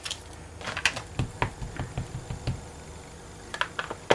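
Light, irregular taps and clicks of a clear acrylic stamping block being handled and knocked against the work surface. Most come in the first two and a half seconds, with a few more near the end as the block is pressed down on the paper.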